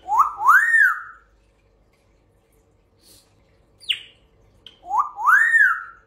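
African grey parrot whistling: a two-note call of rising-then-falling whistles, given twice about five seconds apart, with a brief high falling chirp between them.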